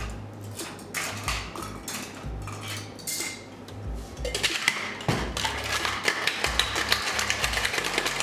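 Ice cubes dropped into a metal cocktail shaker with scattered clinks, then, from about four seconds in, the shaker shaken hard: a fast, continuous rattle of ice against metal.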